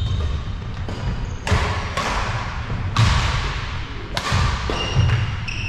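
Badminton rally: several sharp racket strikes on the shuttlecock, with thudding footsteps on the wooden court floor, echoing in the hall.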